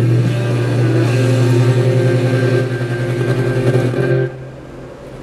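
Vintage Magnavox console radio sounding through its own speaker while its knobs are turned: a loud, steady low hum with faint held tones above it. The sound drops sharply about four seconds in as a knob is turned.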